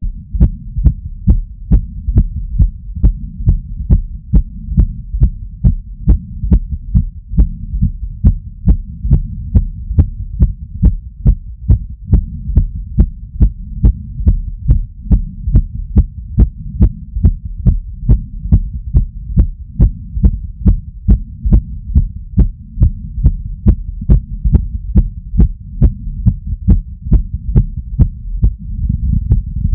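Fast heartbeat heard through a digital stethoscope during cardio exercise, about two beats a second, each a sharp thump over a steady low rumble.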